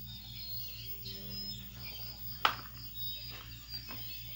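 A steady low electrical hum with faint high chirping tones over it, and a single sharp click about two and a half seconds in.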